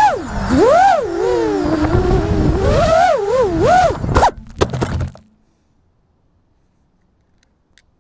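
FPV quadcopter's brushless motors (T-Motor F40) whining close up, the pitch swooping up and down with the throttle. About four seconds in it touches down with a few knocks and scrapes on gravel, and the motors stop just after five seconds.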